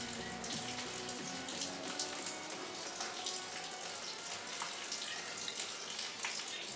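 Steady rushing, hiss-like outdoor background noise with faint crackles and a few faint thin tones.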